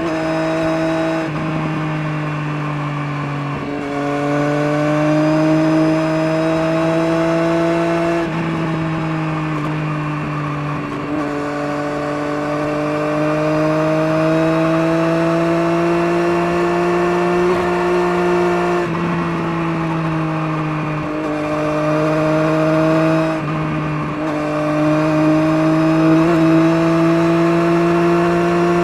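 Engine running through a Scorpion aftermarket exhaust, a steady loud drone whose pitch climbs slowly over several seconds and then drops sharply, about six times through the stretch.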